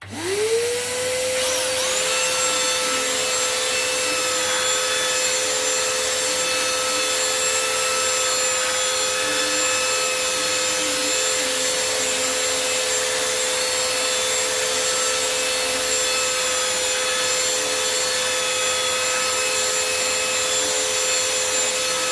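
Parkside PBSD 600 A1 belt sander switching on, its motor whine rising within the first second, then running steadily while sanding rough timber, with a shop vac hose attached for dust extraction.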